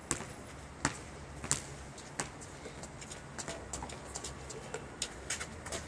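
Basketball dribbled on an asphalt court: four sharp bounces a little under a second apart, followed by fainter taps and scuffs as the player moves in and shoots at the rim.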